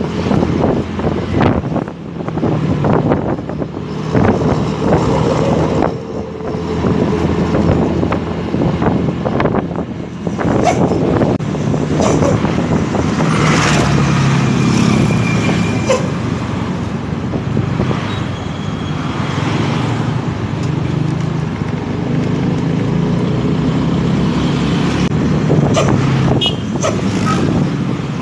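Truck air brakes giving short bursts that bark like a dog, about halfway through and again near the end, over steady engine and traffic noise.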